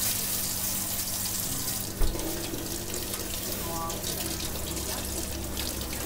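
Water from a tap running steadily into a stainless steel sink, splashing over a bunch of grapes being rinsed by hand. A single sharp knock about two seconds in.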